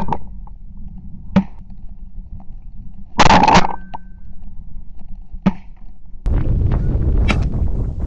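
Shotgun shots at flying Canada geese: a loud report right at the start and a quick burst of two or three shots about three seconds in, with fainter single reports between them. From about six seconds a steady rushing noise sets in, broken by more sharp cracks.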